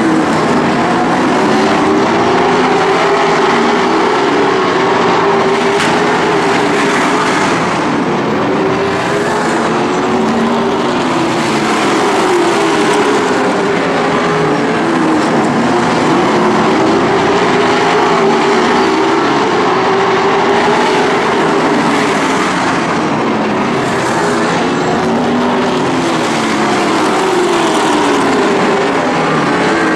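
A pack of late model stock cars racing on a short oval, their V8 engines running loud and continuous, with pitches repeatedly rising and falling as the cars pass and accelerate through the turns.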